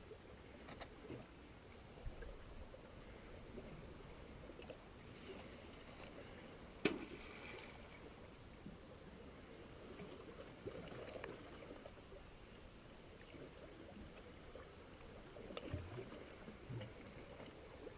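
Faint sea water lapping against shoreline rocks, a soft steady wash, with one sharp click about seven seconds in.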